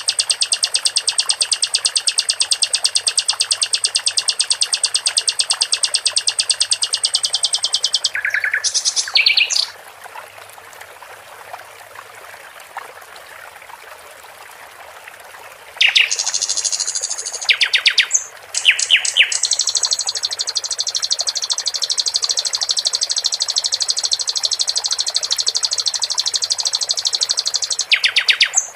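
Sikatan londo songbird singing long, very fast trills of rapidly repeated high notes. The trills stop for several seconds near the middle and then return as one long trill, over a steady trickle of water.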